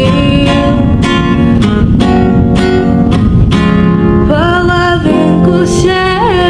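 Song with acoustic guitar strummed about twice a second, and a voice singing gliding notes in the second half.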